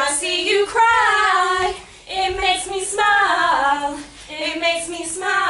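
A woman's voice singing a slow melody with no accompaniment, in three held phrases with short breaths between them.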